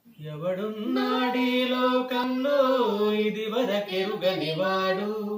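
A woman singing unaccompanied: a slow phrase of long held notes that step up and down in pitch.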